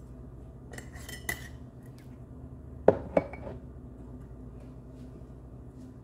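Kitchen dishes or utensils clinking: a short light rattle about a second in, then two sharp clinks in quick succession near the middle, the loudest sounds here.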